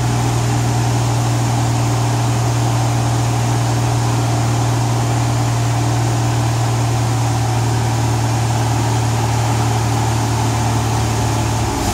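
1998 Oldsmobile Bravada's 4.3-litre V6 held steady at raised revs, about 2,000 to 2,500 rpm, with one even note. The revs ease off at the very end as the throttle is let off.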